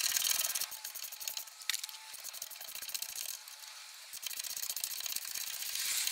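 A hand ratchet with a 17 mm socket clicking as it tightens a coilover's lower mounting bolt. The clicks come in fast runs at the start and again over the last two seconds, with a lull and a single sharp click in between.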